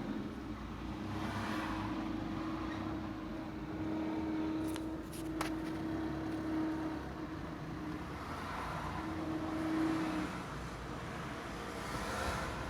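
Ford C-Max whining as it pulls away: a steady whine that holds for several seconds, drops out, and comes back, over the car's running and road noise. A few sharp clicks come about five seconds in.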